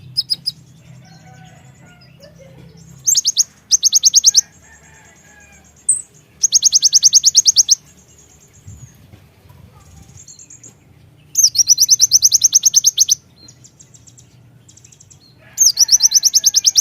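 Kolibri ninja (konin) sunbird singing: loud, high-pitched rapid trills in bursts of one to two seconds, four times, with softer chirps between them.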